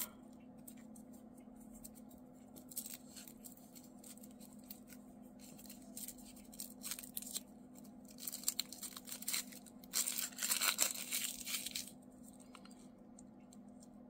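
Paper wrapping being peeled and torn off a handmade watercolour half pan, with crinkling and scattered small clicks. The crinkling grows denser and louder about eight seconds in and dies away about two seconds before the end.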